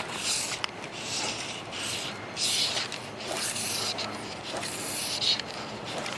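A series of short rustling, rubbing noises, roughly one every half second to a second.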